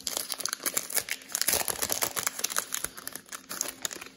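Wrapper of a Prizm football card cello pack crinkling and tearing as it is opened by hand: a rapid, irregular crackle that thins out near the end.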